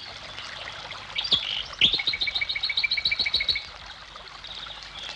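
Birds singing outdoors: a few high chirps about a second in, then one bird giving a fast trill of about a dozen evenly repeated high notes for about a second and a half, over a faint steady hiss.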